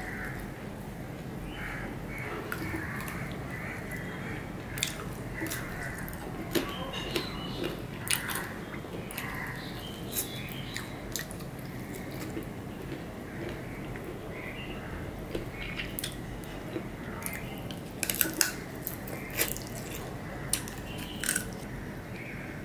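Close-miked eating sounds: chewing mouthfuls of mutton kacchi biriyani eaten by hand, with scattered wet mouth clicks and smacks. Toward the end the clicks come thicker as fingers gather rice on the plate.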